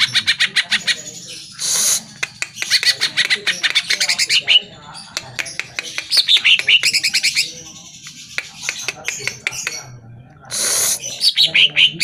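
Male cucak ijo (greater green leafbird) singing loudly: fast strings of sharp, repeated notes and chattering phrases, with falling runs of notes about four and six seconds in. Two short harsh, hissing bursts break in, about two seconds in and near the end.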